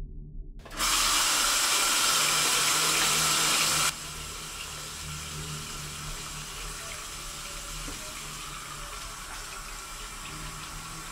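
Water from a tap running into a sink: a steady rush that starts loud, then drops suddenly to a quieter level about four seconds in and keeps running.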